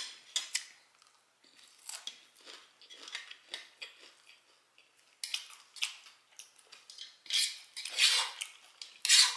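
Close-up chewing and lip-smacking of barbecue ribs and fried chicken: a run of wet clicks and crunches, with louder bursts in the second half.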